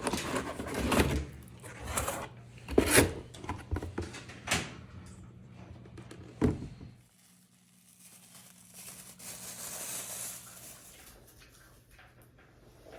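A series of knocks and clunks, then after a brief drop-out a faint steady hiss.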